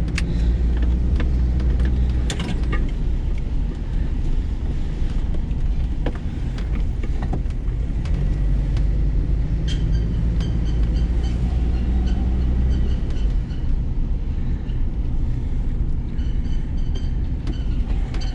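A vehicle's engine running with a steady low hum, heard from inside the car, with a few short clicks a couple of seconds in.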